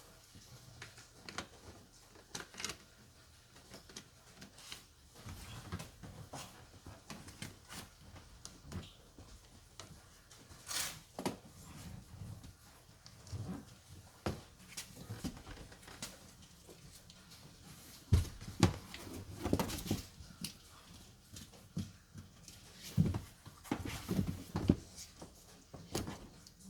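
Scattered clicks and knocks of tools and parts being handled, with louder knocks about two-thirds of the way through and again near the end.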